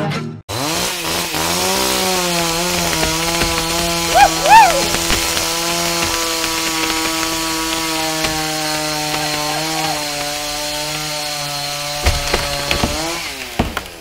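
Chainsaw revving up and running steadily at full throttle at the base of a large tree, its pitch dropping near the end as it comes off the throttle. Two short rising-and-falling squeals about four seconds in are the loudest moments.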